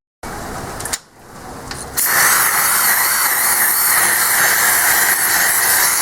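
Steady hiss of heavy rain, jumping sharply louder about two seconds in.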